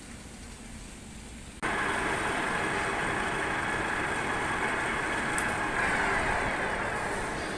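A metal lathe at work cleaning rust off a bushing, making a steady grating hiss that starts abruptly about one and a half seconds in, after a quieter stretch of machine background.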